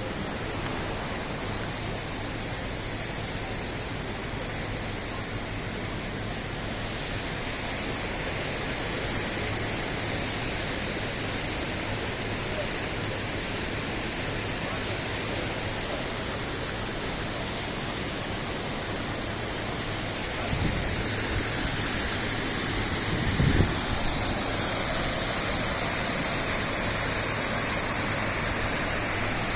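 Mountain river rushing through a gorge as a steady, even roar of water, with a couple of low bumps about two-thirds of the way through.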